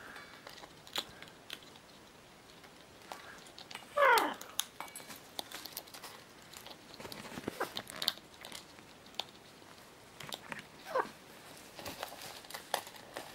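Scarlet macaw feeding from a stainless steel bowl: scattered clicks and crunches of its beak against the metal and the food. A short falling call about four seconds in, and a softer one near eleven seconds.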